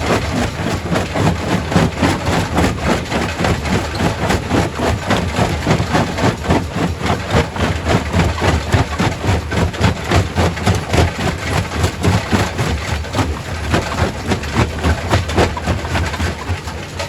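Quarry primary rock crusher at work: a dense, irregular clatter of rock being broken over a steady low machine drone, easing off near the end.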